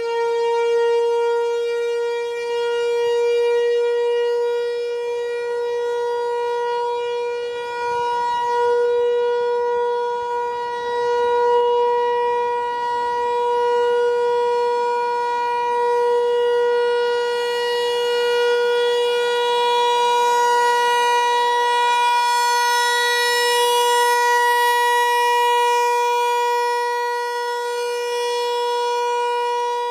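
American Signal T-128 outdoor warning siren sounding a steady single-tone alert at full pitch during a siren test. Its tone holds level in pitch and swells and fades gently as the rotating horn sweeps around.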